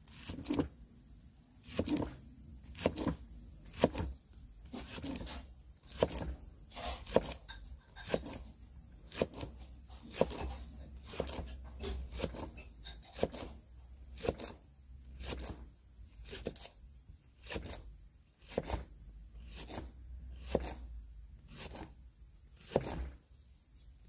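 Victorinox Trailmaster Swiss Army knife blade slicing a green onion into rounds, each cut ending in a crisp tap of the blade on the cutting board, at a steady pace of about one cut a second.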